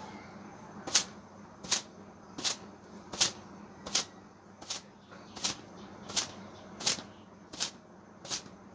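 Long wet hair being whipped through the air to dry it: a sharp swishing slap about every three quarters of a second, eleven strokes in all.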